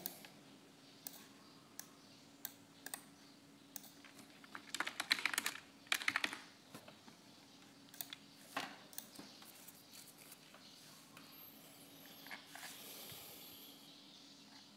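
Computer keyboard typing in a short burst about five seconds in, keying a short label. Single mouse clicks come before and after it, over a faint steady hum.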